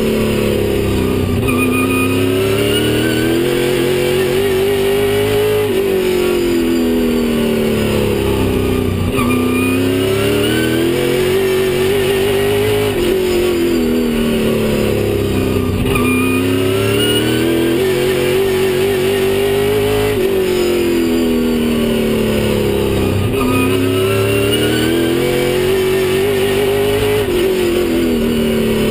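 Stock car engine at full race pace, its pitch climbing under throttle and then dropping away as the driver lifts, over and over about every three to four seconds.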